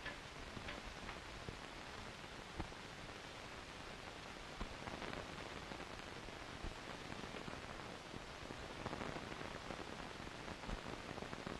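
Steady hiss of an old film soundtrack, with a few faint clicks scattered through it.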